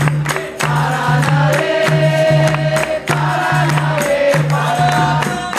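Capoeira roda music: a group sings held chorus notes over a pulsing berimbau, with sharp pandeiro strikes keeping the beat.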